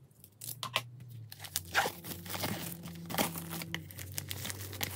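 Plastic shrink wrap being torn open and peeled off a sealed CD album: crinkling and crackling with irregular sharp rips, loudest about two seconds in.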